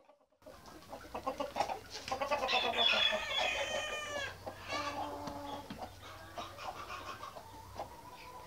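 A flock of white Australorp chickens clucking, with a long drawn-out call from about two and a half seconds in that lasts nearly two seconds and drops in pitch at its end, then another shorter held call.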